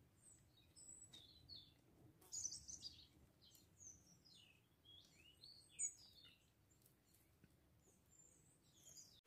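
Faint outdoor birdsong: small birds giving many short, quick chirps and twitters, with a few faint clicks among them.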